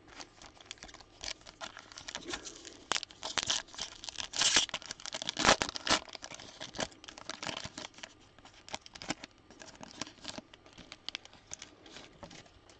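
Foil trading-card pack wrapper being torn open and crinkled, a busy run of sharp crackles with the loudest rips about four and five and a half seconds in.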